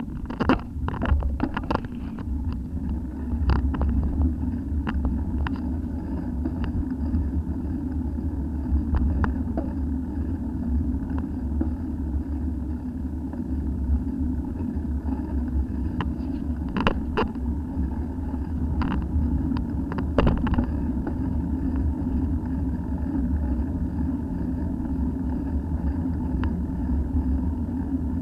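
Steady low rumble of a road bicycle being ridden, picked up by a camera mounted on its handlebars. A cluster of sharp knocks and rattles in the first two seconds, over broken, patched tarmac, and a few more later on.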